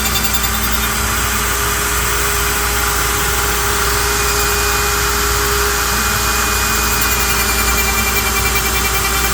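Router spindle on a CNC cue lathe running steadily while it cuts a curly maple blank turning slowly on the rotary, together with the rush of a shop vacuum drawing off the chips. A loud, even machine noise with a steady high whine.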